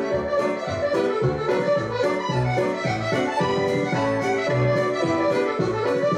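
Scottish country dance band music for a reel, an accordion leading the tune over a steady bass beat.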